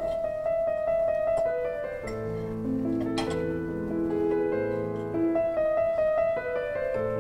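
Background instrumental music: slow melody of held notes over sustained chords.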